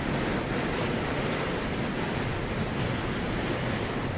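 Tornado wind and driven heavy rain rushing steadily outside, heard from indoors through glass doors.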